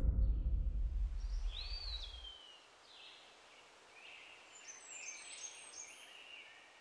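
A low rumble dies away over the first two seconds, leaving faint outdoor birdsong: whistled notes, one rising then falling, and a cluster of short high chirps toward the end.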